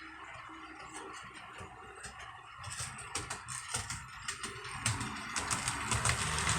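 HO scale model train running on the track, with a low motor hum and a rattle of sharp clicks from the wheels and mechanism. The clicks start a little under halfway in and grow louder toward the end, as if the train is drawing closer.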